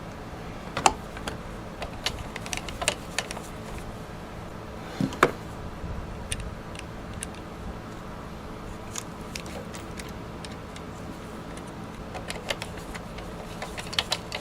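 Scattered light clicks and taps from a small plastic indicator piece and its hardware being handled and fitted on a miter saw. The sharpest knocks come about a second in and about five seconds in, with a few more near the end.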